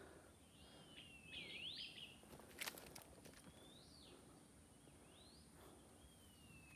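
A wild bird whistling faintly: about five clear phrases, each a thin note sliding down and then sweeping sharply up. A single sharp click sounds near the middle.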